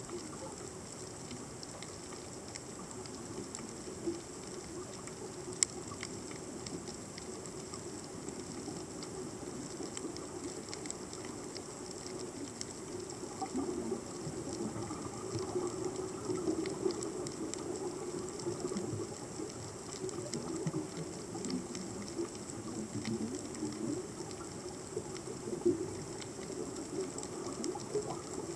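Underwater ambience recorded on a reef: a constant crackle of scattered sharp clicks, with one sharper snap about five and a half seconds in, over a low, fluctuating rumble that grows louder about halfway through. A faint steady high whine runs underneath.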